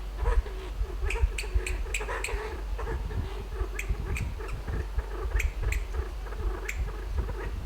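Kalij pheasant making sharp clicking calls, about ten of them, irregular and partly in quick runs, over a low wavering trill. A steady low rumble runs underneath.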